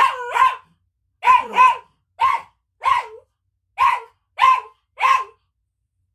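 Dog barking repeatedly: about nine short barks, each falling slightly in pitch, spaced half a second to a second apart, stopping about five seconds in.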